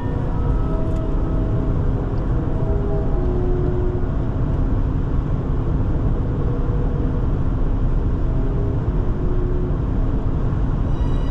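Steady rumble of road and wind noise from a car driving at highway speed, with faint held notes of orchestral music underneath that swell near the end.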